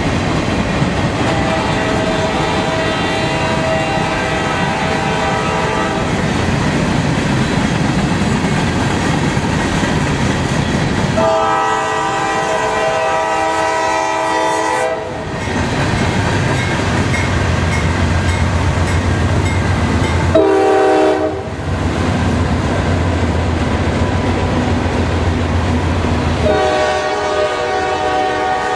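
Freight train cars rolling past close by, with steady wheel and rail noise. A locomotive horn sounds over it: a long blast about eleven seconds in, a short one around twenty seconds, and another starting near the end.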